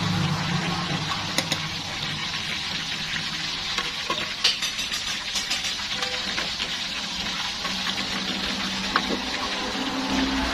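Hot oil sizzling steadily in an aluminium wok as food fries, with a few sharp clicks of a metal spatula and a plate knocking against the pan.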